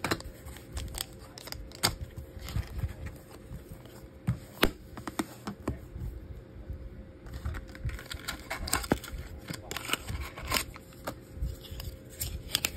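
Hands handling a trading-card display box and its foil pack: sharp clicks and taps scattered throughout, with stretches of crinkling wrapper.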